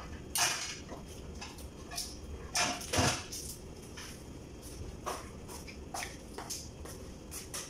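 Scattered clinks and knocks of plates, utensils and crab shells being handled while eating, with a heavier thump about three seconds in.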